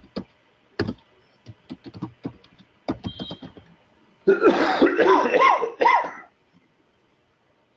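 Computer keyboard typing: a run of irregular key clicks over the first three and a half seconds or so. About halfway through, a person's voice sounds for about two seconds with no clear words.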